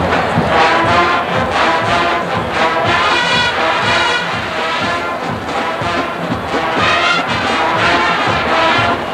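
College marching band playing a big-band style number, brass to the fore over a steady drum beat.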